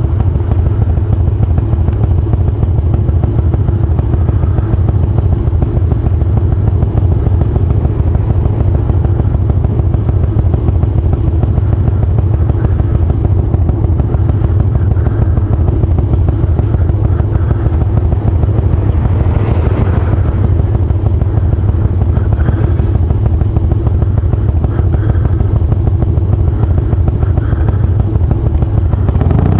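Harley-Davidson Twin Cam 88 V-twin motorcycle engine, fitted with Feuling 525 cams, running steadily with no change in engine speed.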